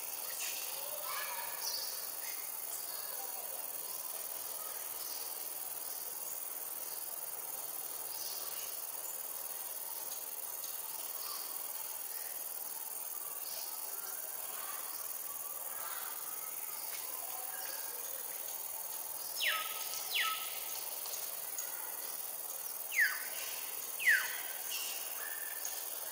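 Forest ambience: a steady high-pitched insect drone, joined by four short whistled calls that each fall sharply in pitch, coming in two pairs about two-thirds of the way through and near the end.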